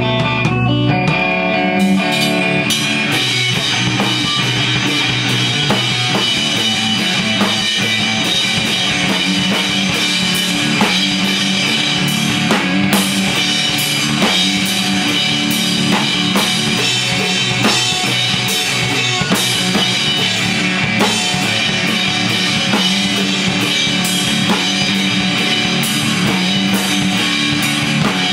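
Electric guitar through an amplifier and an acoustic drum kit playing rock together live. The guitar rings alone at first, and the drums come in about two seconds in.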